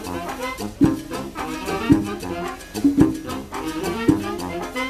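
Live Latin band playing: saxophones, trumpets and a sousaphone over congas, with sharp accents about once a second.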